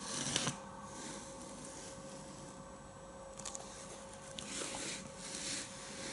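Faint rustling and soft scrapes of hands handling and turning a rifle, coming in a few short spells, over a steady faint electrical hum.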